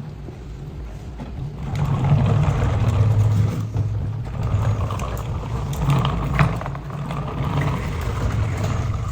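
Remote-control dumper truck's small electric drive motor and gears whirring steadily, growing louder about two seconds in.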